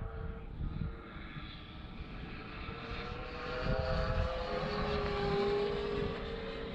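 Electric RC model airplane flying, its three-blade propeller and motor making a pitched drone that rises in pitch and grows louder partway through as it passes, then holds steady.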